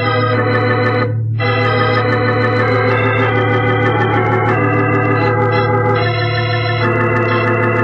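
Organ music bridge between scenes: sustained chords over a steady held bass note, shifting to new chords a few times.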